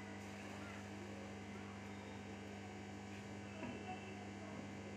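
Steady low electrical hum under quiet room tone, with a few faint soft handling sounds just before the end.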